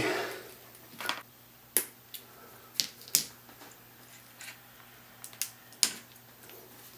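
Handling noise from the opened LED panel: about half a dozen sharp, scattered clicks and taps as its small plastic parts and fan wire connector are moved about by hand.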